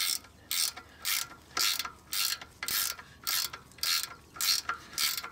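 Ratchet wrench being swung back and forth in short strokes, each backstroke a quick burst of pawl clicks, about two a second, tightening a bolt during the front brake caliper installation.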